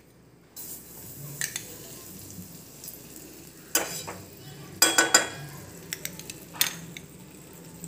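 Butter sizzling as it melts in a hot metal kadai, beginning about half a second in. A few sharp clinks of a spoon scraping butter from a glass bowl and tapping the pan come near the middle and later.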